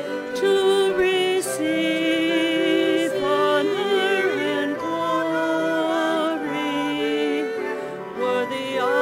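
Offertory hymn: a singing voice with vibrato over steady instrumental accompaniment, moving from note to note in phrases, with a short break near the end.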